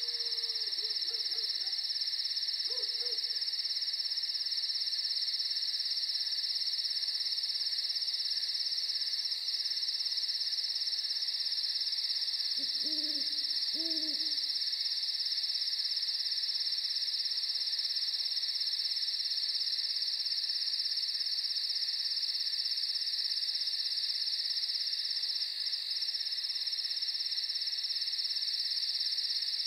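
Night ambience: a steady high-pitched chorus of crickets, with a few owl hoots over it, two of them close together about halfway through.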